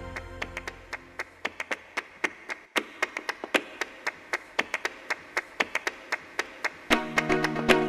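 Background music: a sparse section of rapid, sharp percussive clicks over faint held tones. Near the end, fuller instrumentation with a bass line comes in and the music grows louder.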